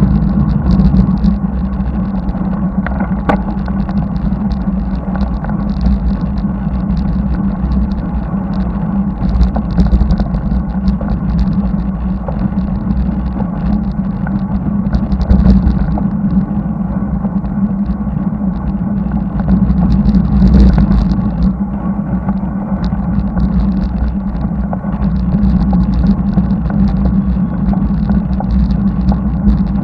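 Steady low rumble of wind and road noise on the microphone of a camera mounted on a bicycle riding along a paved road, swelling briefly a few times.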